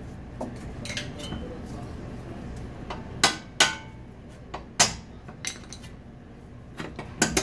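Sharp metal clinks and taps of a screwdriver against steel suspension parts as a bolt is worked out of the lower control arm: a handful of separate strikes with a brief ring, starting about three seconds in.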